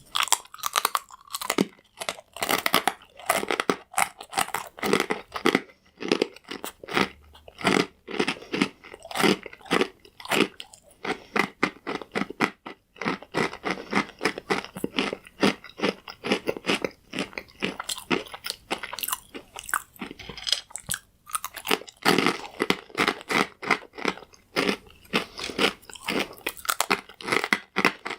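Someone chewing crunchy croutons: a steady run of crisp, rapid crunches, with brief pauses about halfway through and again about three-quarters of the way in.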